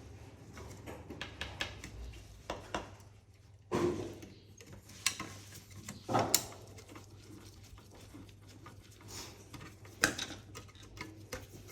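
Small hard drone-frame parts and screws clicking and clattering by hand while a side wall is screwed onto the frame's cubes, with a few louder knocks among the light clicks.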